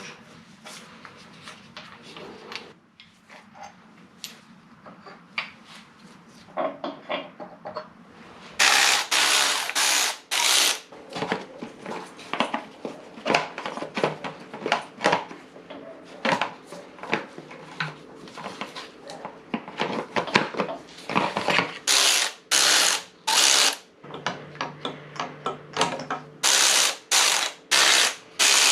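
Ratchet wrench working fasteners on a partly stripped Subaru EJ20 engine: runs of fast ratcheting clicks about half a second long, three or four at a time, with the clink of tools and metal parts in between.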